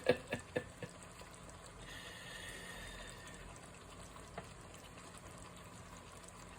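Canned chicken and dumplings being emptied into a pan: a few light knocks at the start, then a faint wet pour lasting a second or two.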